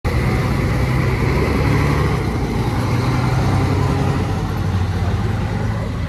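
City bus engine running close by: a loud, steady low drone whose pitch shifts a little, with a faint steady whine above it.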